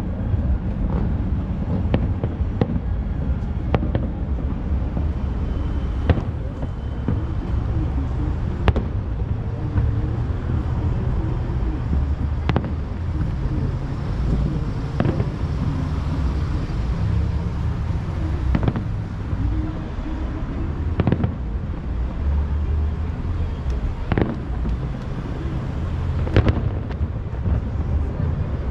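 Distant aerial fireworks shells bursting, a dozen or so sharp bangs at irregular intervals a few seconds apart, over a steady low rumble.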